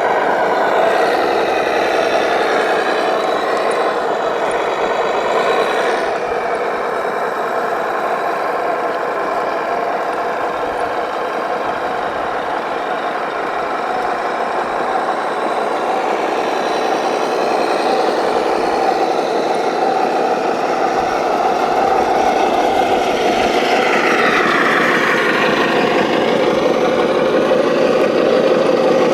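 Radio-controlled model heavy vehicle running: a steady whine from its electric drive motors and gearing, with the pitch sweeping down and back up near the end as it changes speed.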